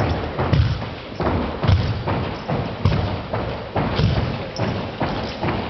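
Heavy thuds, roughly two a second and unevenly spaced, echoing in a large hall: a JROTC drill team's boots stamping and rifle butts striking the floor during a drill routine.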